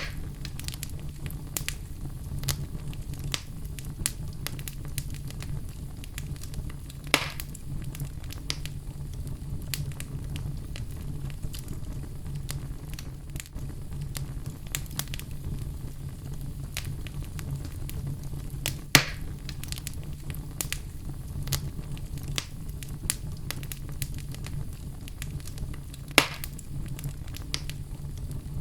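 Outdoor fire crackling, with a steady low rumble from the flames and frequent small sharp crackles. Three much louder pops are spread through it.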